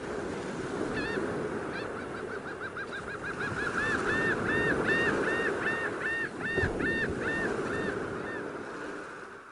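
A curlew calling: a long run of whistled notes over the steady wash of surf. The notes start as a fast rippling series and then go on as slower, louder notes until near the end.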